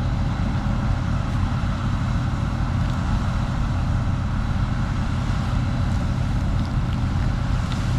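Truck engine running steadily with a low, even drone.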